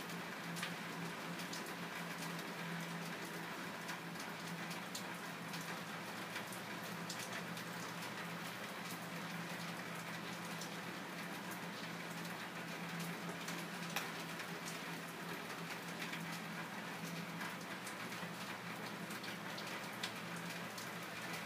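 Steady hiss with many faint scattered ticks and a low steady hum, with a slightly sharper tick about 14 s in.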